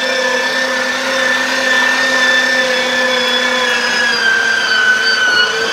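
Electric meat grinder's motor running steadily with a whine as it minces chicken, its pitch sagging slightly about four seconds in as meat is pressed down the feed tube and loads the motor.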